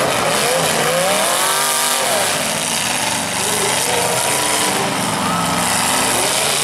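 Demolition derby cars' engines revving on the track, several pitches rising and falling over one another, the biggest rev swelling and dropping about a second in, over a constant wash of noise.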